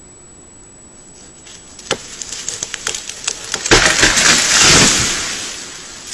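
A beaver-gnawed tree giving way at its chewed-through base: a string of sharp cracks and snaps of splitting wood from about two seconds in. About a second later the trunk breaks off and comes crashing down, a loud rush of branches through the brush that fades out over the next two seconds.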